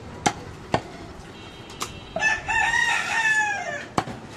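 A rooster crows once, a single long call starting about two seconds in. A butcher's knife strikes the wooden stump chopping block in a few sharp knocks before and after the crow.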